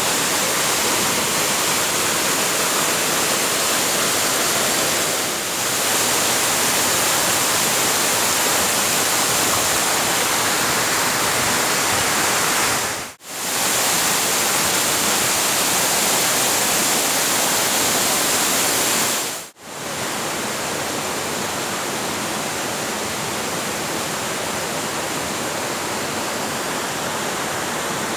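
Steady rushing of river water and waterfalls. It cuts out briefly twice and is a little quieter after the second break.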